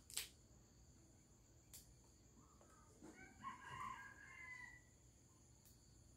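A rooster crowing once, faint, starting about three seconds in and lasting about a second and a half, ending in a falling glide. A sharp click comes right at the start.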